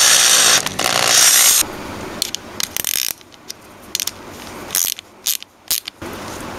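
Electric drill boring through a PVC pipe for about a second and a half. Then a ratcheting box-end wrench clicks in short strokes as a nut is tightened.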